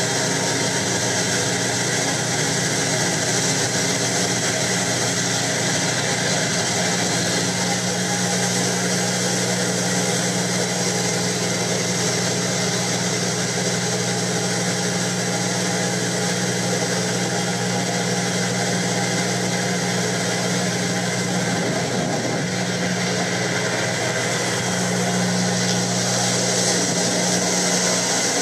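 A boat engine running steadily with a deep, even hum, under a constant hiss of wind and water. The hum's pitch wavers briefly about two-thirds of the way through.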